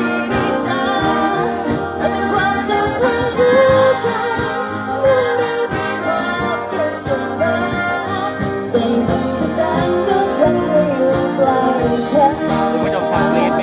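Live amplified music: a woman singing a melody over a band of wind and string players, heard through a PA speaker.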